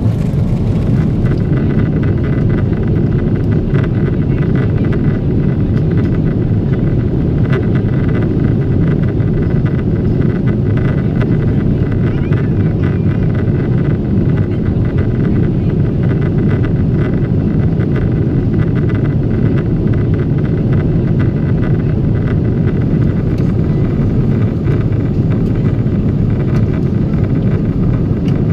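Steady cabin noise of a Boeing 777-200 airliner in flight: a loud, even, deep roar of engines and rushing air, with a faint steady high whine above it.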